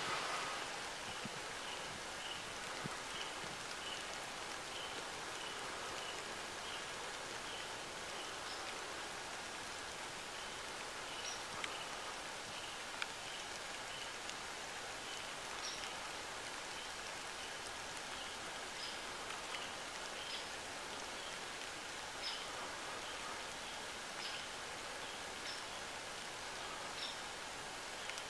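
Steady rain falling on the leaves and grass, an even hiss, with a faint high note repeating about twice a second during the first third.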